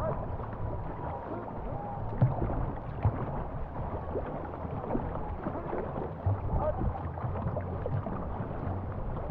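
Paddles pulling through river water and water washing along a wooden canoe hull, with a low rumble and a few sharp knocks, the clearest just after two and three seconds in.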